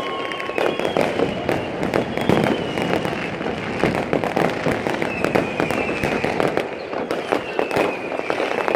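Many aerial fireworks and firecrackers going off at once: a dense, unbroken crackle of bangs and pops. A few faint drawn-out tones slide slowly down in pitch over the top.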